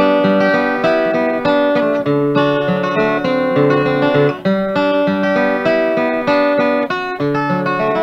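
Acoustic guitar picking an instrumental passage of an old-time blues tune, plucked melody notes over a bass line, with no singing.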